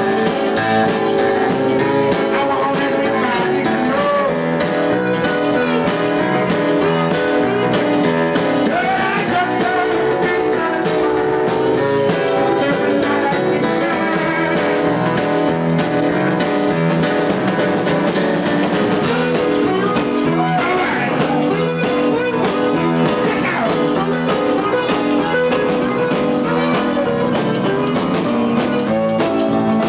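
Live blues band playing a steady number on electric keyboard, electric guitar and drum kit.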